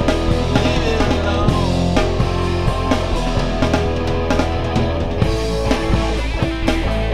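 Rock music: a band playing with drum kit and guitars, in a break between sung lines.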